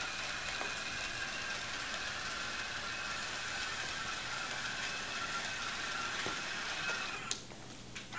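Small electric motors of a Roomba carrying a robot arm whirring steadily with a faint whine. A sharp click comes about seven seconds in, and the sound briefly drops away.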